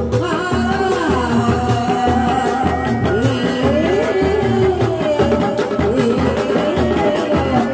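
Sundanese dog-dog drums, large single-headed drums of a reak ensemble, beaten by hand in a steady repeating beat. Over the drumming, a melody line glides up and down in pitch.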